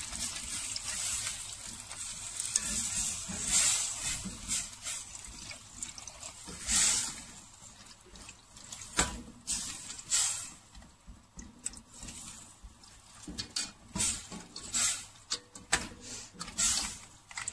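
Liquid sloshing as a silicone spatula stirs chunks of seafood through a pot of freshly added water and flour-thickened butter. A steady hiss over the first few seconds, then separate stirring and scraping strokes.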